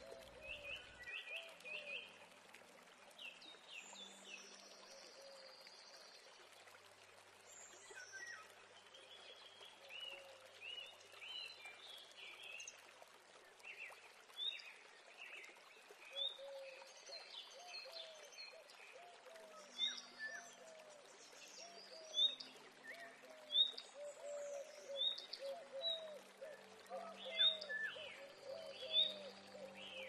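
Birds calling throughout: many short, high chirps, with a series of lower, short repeated calls that come thicker in the second half.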